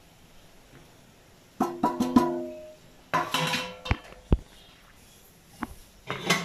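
Stainless steel bowls knocked and set down on a hard counter. A cluster of clinks comes about a second and a half in, one ringing briefly as metal, followed by a few more separate knocks and a short scrape-like burst near the end.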